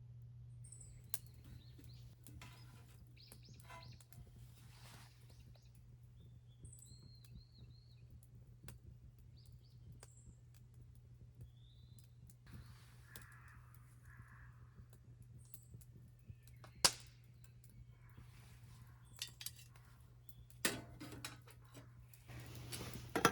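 Wild birds calling intermittently, short high chirps and a few longer calls, over a faint steady low hum. A few light clicks, one sharp knock about 17 seconds in, and some clattering near the end.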